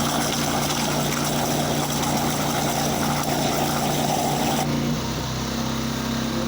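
Petrol pressure washer engine running under load with a steady rush of water from the pressure washer. About five seconds in the water rush stops and the engine note rises, as the load comes off.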